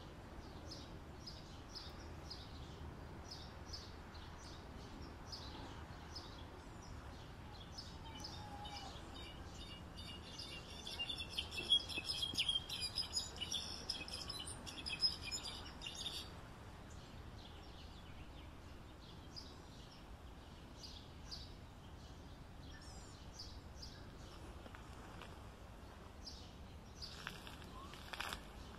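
European goldfinch singing: scattered high chirps, then a fast, dense twittering run from about eight to sixteen seconds in, then sparse chirps again, over a faint steady background hiss.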